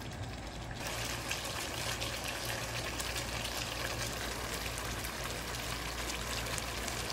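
Chicken curry in a thick coconut-milk sauce simmering in the pan: a steady bubbling and crackling that gets a little louder and brighter about a second in.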